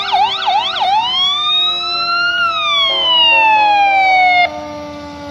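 Fire truck siren: a few quick up-and-down yelp sweeps, then one long wail that rises and slowly falls before cutting off suddenly near the end.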